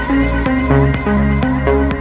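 Electronic dance music with a steady beat, deep bass and a short repeating synth melody.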